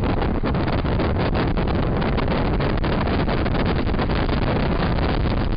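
Loud steady road and wind noise inside a vehicle's cabin driving fast, with wind buffeting the camera microphone and a constant run of small knocks and rattles.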